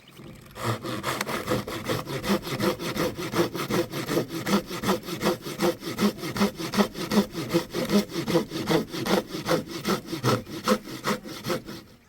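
Steady back-and-forth sawing strokes, about three a second, starting about half a second in and stopping near the end.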